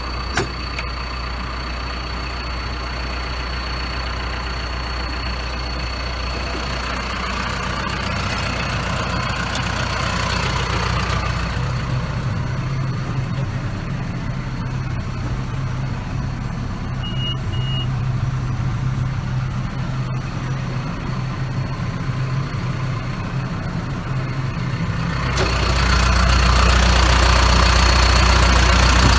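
2008 John Deere 310SJ backhoe loader's four-cylinder diesel engine running steadily. Its note shifts about twelve seconds in, and it gets louder near the end as the revs or load come up. Two short, faint high beeps come about two-thirds of the way through.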